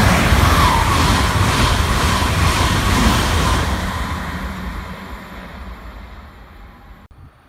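ICE high-speed train passing close at speed: a loud rush of wheels and air with a beat of about two strokes a second from the wheelsets. It fades steadily after about three and a half seconds as the train draws away.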